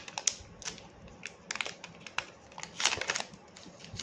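Hands handling a coiled white micro-USB charging cable: a string of small clicks and crinkling rustles as it is turned over and uncoiled, loudest about three seconds in.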